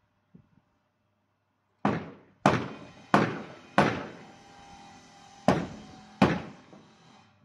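Six hammer blows on the top of a wooden barn door, each ringing briefly: four in a steady run, a pause, then two more.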